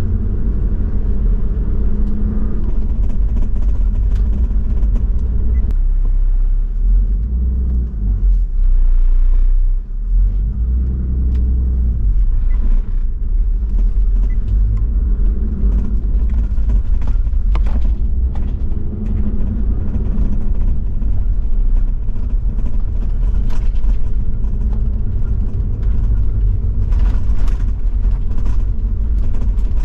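Toyota Land Cruiser 70-series diesel driving on an unpaved gravel road: a steady low engine and drivetrain rumble with scattered ticks and knocks from stones and bumps under the tyres.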